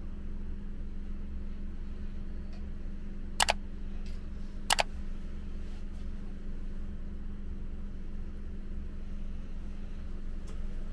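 Steady low room hum, with two sharp clicks about a second and a half apart a little over three seconds in.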